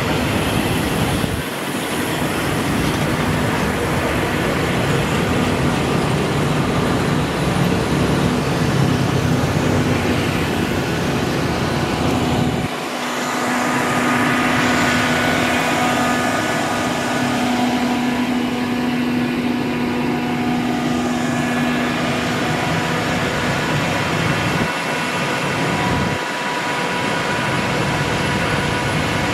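Passenger coaches of a train rolling past at close range: a steady rumble and clatter of wheels on rail, with a steady low hum through the middle for several seconds.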